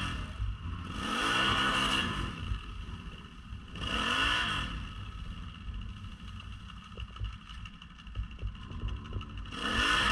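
ATV engine revved hard in repeated bursts, rising and falling about four times, as the quad sits stuck in deep mud and the rider tries to drive it out. Between bursts the engine drops back to a low idle.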